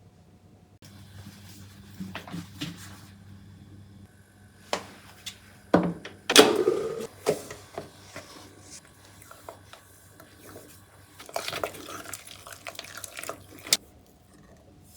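Irregular handling noises: scattered clicks, knocks and rustling, with a few louder knocks about six seconds in.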